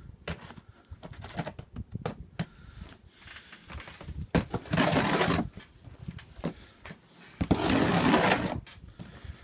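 A cardboard shipping box being torn open by hand. Scattered knocks and scrapes are followed by two loud tears about five and eight seconds in, each lasting about a second.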